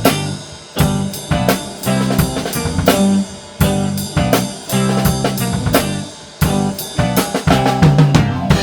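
Four-piece drum kit with a purpleheart stave-segment snare played along to a blues-rock band recording with electric guitar, driving out the song's closing bars with a steady beat of hard hits.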